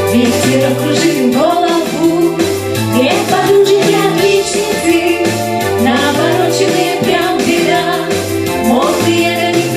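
A song: a singing voice carrying a melody over instrumental accompaniment with a stepping bass line and a steady beat.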